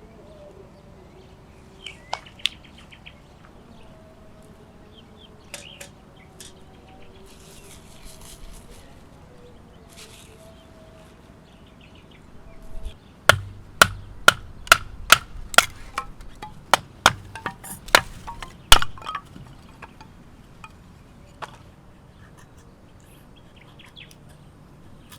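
About a dozen sharp, hard blows about halfway through, at roughly two a second, of a tool striking something solid, as in hammering or chopping at camp.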